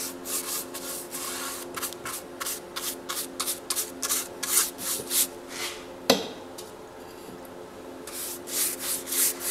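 Bristle paintbrush swished back and forth over a plywood shelf board, brushing on wood stain in quick strokes of about two to three a second. The strokes pause briefly about six seconds in, then start again.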